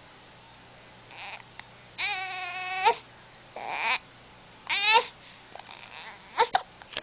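A baby's high-pitched vocal sounds: one long held cry-like note about two seconds in, then shorter rising squeals, and a few brief sharp sounds near the end.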